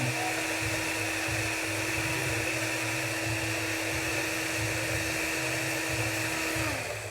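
A cordless screwdriver's small electric motor runs steadily for about seven seconds, spinning a fan rotor shaft against fine sandpaper to polish it, with a hiss of abrasive over the motor's hum. It cuts off near the end, its pitch dropping as it winds down.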